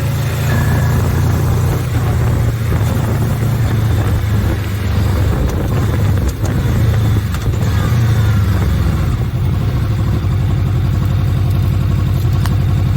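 Honda VFR800F's V4 engine running steadily, with small rises and dips in engine speed.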